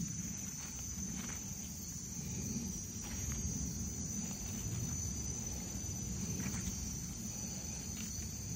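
Steady high-pitched chorus of forest insects, with a low rumble underneath and a few faint soft scrapes or clicks.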